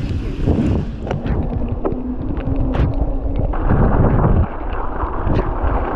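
Wind buffeting the microphone over the rumble of a mountain bike riding across snow and ice, with scattered clicks and knocks from the bike.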